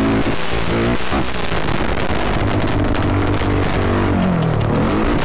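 Sport ATV engine revving while riding a dirt track; the pitch changes in steps, and near the end the revs dip and climb back up.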